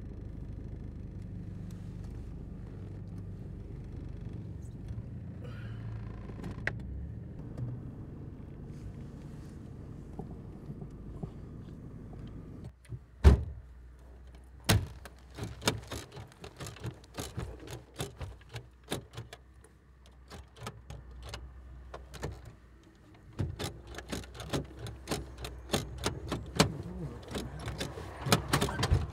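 A car's steady low rumble that cuts off about twelve seconds in, then a single loud thunk, followed by a long run of quick clicks and rattles.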